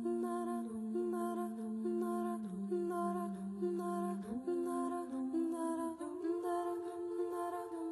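Background music: a slow melody of held notes over a sustained low note that steps to a new pitch every few seconds.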